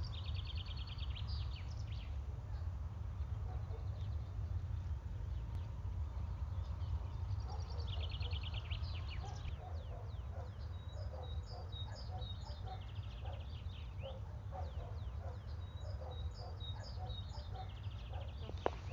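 Rural village ambience: small songbirds singing in quick high trills and chirps, and domestic fowl calling in short repeated notes from about a third of the way in, over a steady low rumble.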